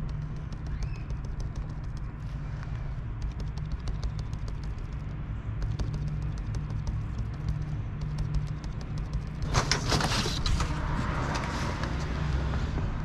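A steady low hum with faint light clicks. About ten seconds in comes a brief loud rustling hiss, which trails off softer over the next two seconds.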